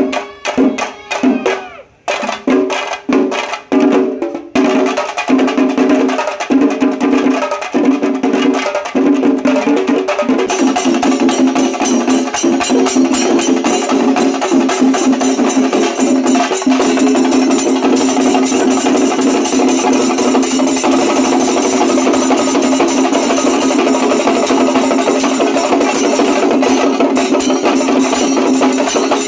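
Traditional percussion ensemble of drums and cymbals playing. It starts with separate spaced strokes, breaks into fast continuous drumming about four seconds in, and grows denser and brighter from about ten seconds on.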